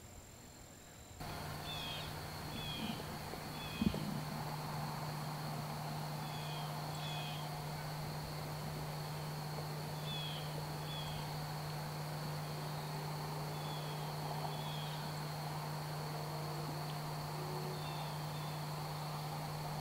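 Outdoor evening ambience: a steady high drone of crickets or other insects, with short paired bird chirps repeating every few seconds over a low steady hum. A single thump comes about four seconds in.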